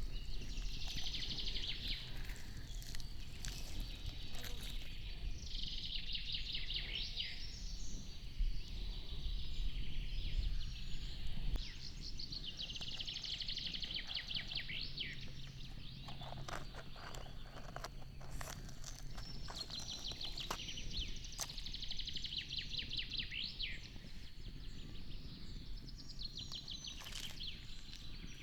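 A songbird singing the same short, fast trilled phrase over and over, about every seven seconds, over a steady low outdoor rumble with scattered faint clicks.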